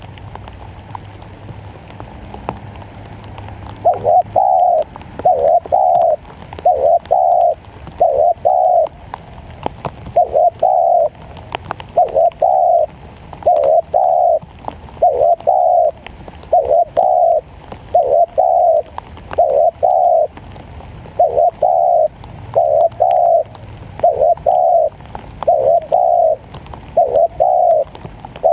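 Spotted dove cooing: low, soft coos in pairs, repeated steadily about once every second and a half to two seconds, starting about four seconds in.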